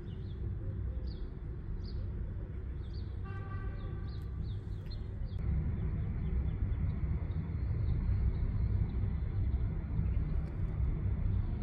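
A small bird chirping, short downward-sliding notes about two a second, over a steady low outdoor rumble; the chirps stop about five seconds in, and a brief held tone sounds a little before that.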